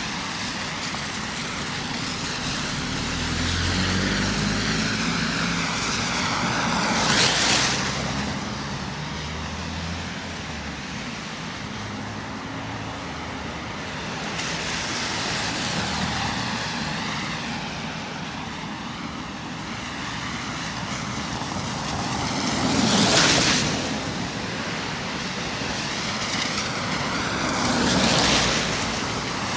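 City street traffic with a steady hiss. Cars pass one at a time about 7, 23 and 28 seconds in, each swelling to a hiss of tyres, and a low engine hum sounds for a stretch in the first half.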